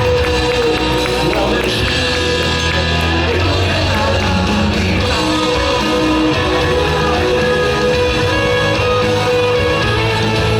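Loud rock music with singing and electric guitar, played at a steady level.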